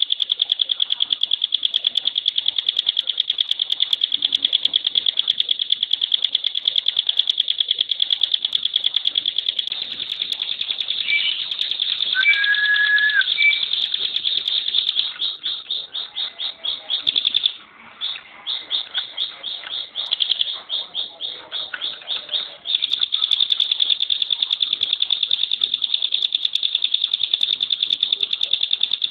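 Ciblek (prinia) songbird singing its rapid, high-pitched rattling trill, the 'tembakan' song, in long unbroken runs. Around the middle it breaks into shorter choppy runs, with a brief lower whistle just before.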